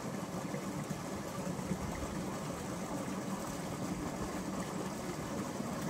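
A steady low engine drone that runs on unchanged, like a motor idling at a distance.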